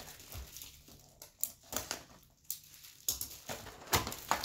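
Wrapped trading-card packs crinkling and rustling as they are pulled out of a cardboard hobby box, with scattered light taps and clicks.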